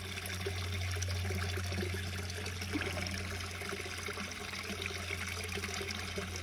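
Water steadily trickling and pouring into a garden koi pond, with a constant low hum underneath.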